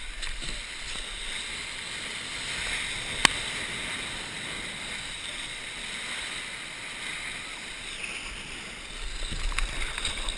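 Whitewater of a broken wave hissing and rushing around a kayak as it is carried in on the surf, with a single sharp knock about three seconds in. Near the end the splashing grows rougher and more uneven as the kayak tips over in the broken water.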